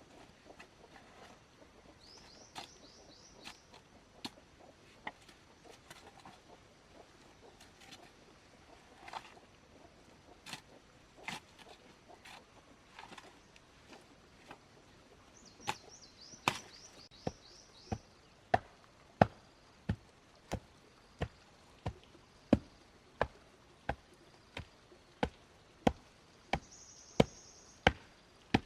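Repeated sharp strikes on wood, first scattered, then about halfway in settling into a steady, louder rhythm of about three blows every two seconds. A bird chirps in short rapid trills three times.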